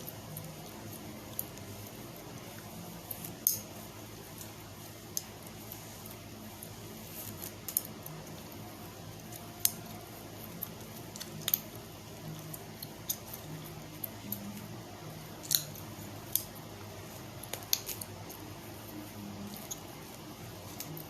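Chewing gum snapping and clicking in the mouth: short, sharp pops at uneven intervals, about a dozen, some much louder than others.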